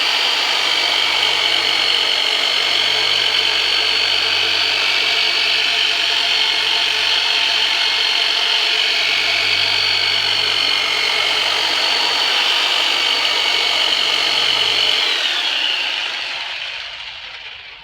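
The Turbonator, a large electric deep-tissue massage tool, running steadily with a high motor whine, then winding down and fading out as it is switched off near the end.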